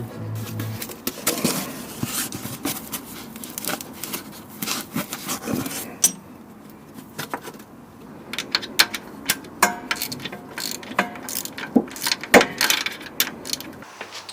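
Irregular metallic clicks, clinks and knocks of hand tools and metal parts being worked on under the Porsche 996's gearbox, including its loose carrier studs. A short tail of background music ends about a second in.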